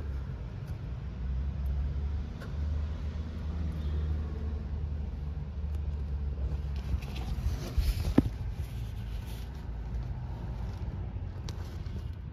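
A steady low rumble, with one sharp click about eight seconds in.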